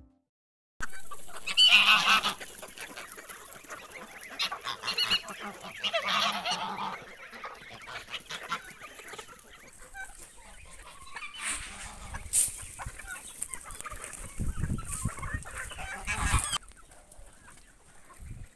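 Mixed farmyard poultry flock calling: geese honking over chickens clucking, with the loudest honks about a second and a half in and again around six seconds.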